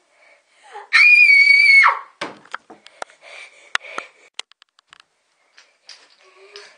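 A girl's shrill scream held steady for about a second, starting about a second in. It is followed by scattered clicks and knocks with faint breathy sounds.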